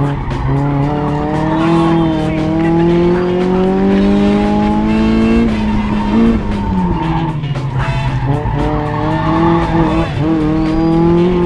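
1999 Mazda Miata's four-cylinder engine, fitted with an aftermarket header and Borla exhaust, running hard: its pitch climbs steadily for about five seconds, drops sharply about halfway through, then climbs again. Music plays over it.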